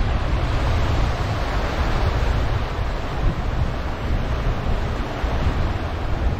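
Small waves washing up and running back on a sandy beach, a steady surf wash, with wind rumbling on the microphone.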